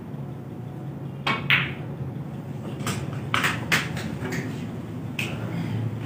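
Snooker shot: a sharp click of cue and balls about a second and a half in, with a short ringing tail, then a few more sharp clicks and knocks as the balls strike each other and the cushions, over a steady low hum.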